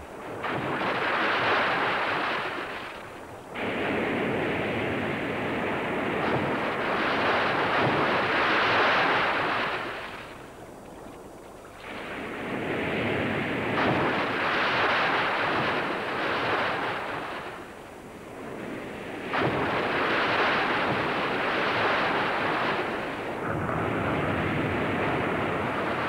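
Southern right whales breaching: heavy splashing and rushing spray as they crash back into the sea. It comes in about four long surges, some starting abruptly, over wind and choppy water.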